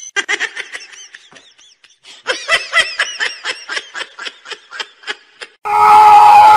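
High-pitched giggling laughter in quick short bursts. There are a few bursts in the first second or two, then a brisk run of them. Near the end it is cut off abruptly by a much louder, steady sound with several held tones.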